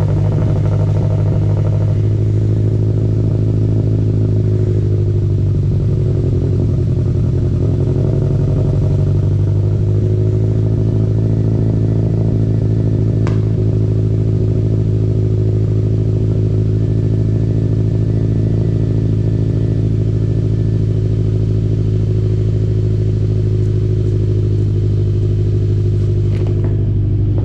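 2013 Subaru WRX's turbocharged 2.5-litre boxer four-cylinder engine idling loudly and steadily in a garage, its speed wavering briefly about six seconds in. The engine has a misfire that shows up as roughness at idle, below 1,000 RPM.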